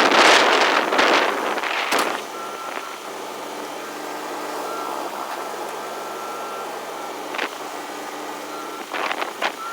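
Wind buffeting the microphone for the first couple of seconds. After that a heavy vehicle's reversing alarm beeps in a steady on-off pattern over a running engine, with a few short knocks near the end.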